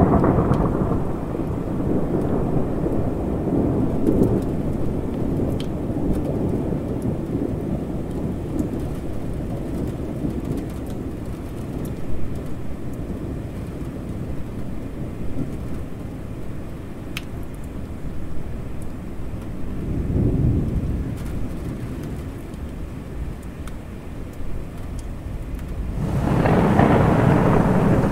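Thunderstorm: steady rain with deep rolling thunder. The thunder rumbles at the start, swells again briefly about two-thirds of the way through, and builds into the loudest roll near the end.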